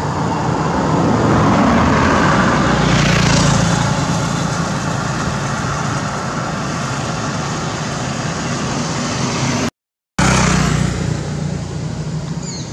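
A motor vehicle's engine running close by on the road, growing louder about one to four seconds in as it passes, then fading to a steady hum. The sound cuts out completely for about half a second near the end.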